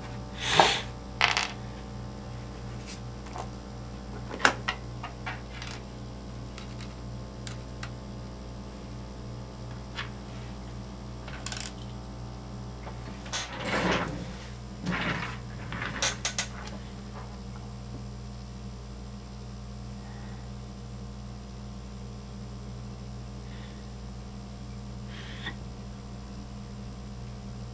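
Small metal parts and hand tools clicking and clattering on a workbench as an RC truck's rear axle hardware is handled: a few sharp clicks, then a longer scraping clatter and quick knocks about halfway through. A steady low hum runs underneath.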